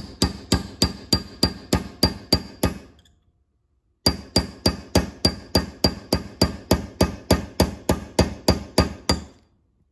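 Hammer tapping a steel pin punch, driving a pin down into a Ford 6F55 front differential case: steady light metal-on-metal taps with a short ring, about three a second. The taps stop for about a second about three seconds in, then start again in a second run.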